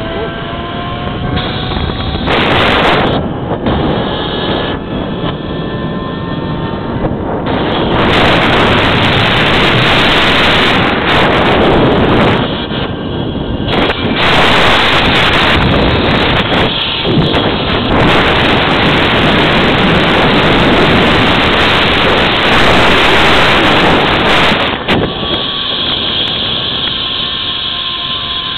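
Heavy wind rushing and buffeting on the microphone during a zipline ride, loudest through the middle of the run, with a faint whine from the trolley's pulleys running along the steel cable that glides in pitch near the start and again near the end.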